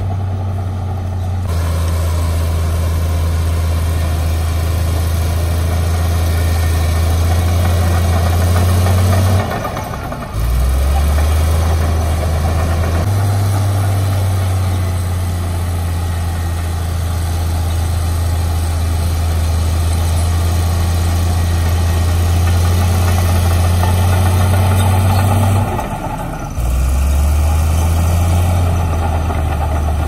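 Diesel engine of heavy earthmoving equipment running steadily under load, its low pitch dropping and then rising back twice, with short dips in level about ten seconds in and again near the end.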